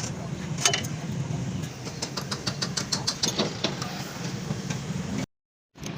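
A vehicle engine running steadily at idle, with many short sharp clicks and taps over it. The sound drops out completely for a moment near the end.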